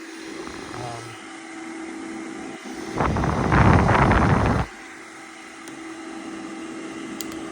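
DC ventilation fan running on about 15 volts, blowing air through a duct with a steady hum. A loud rush of noise runs for about a second and a half, starting about three seconds in.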